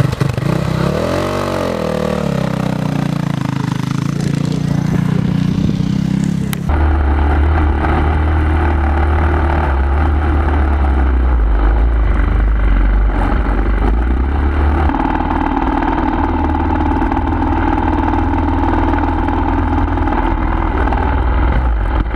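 Motocross motorcycle engines running, the pitch rising and falling as one revs for the first few seconds. About seven seconds in the sound changes abruptly to a steadier, deeper engine note, and it changes abruptly again about fifteen seconds in.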